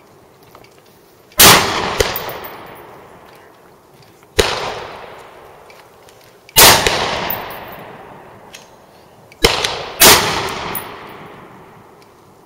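Kel-Tec PLR-16 pistol chambered in 5.56 firing single shots: four loud reports a couple of seconds apart, each trailing off in a long echo, with two fainter sharp cracks close to the first and last shot.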